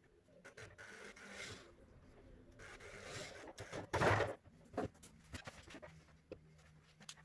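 Workshop handling noises: scattered light clicks and knocks with short scraping rubs, the loudest knock about four seconds in.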